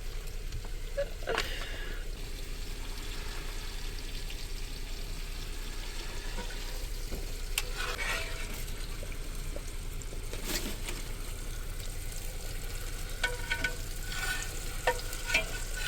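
Meat frying in a pan, a steady sizzle, hot enough that it is starting to burn. A few short clicks and knocks, more of them near the end, sound through it.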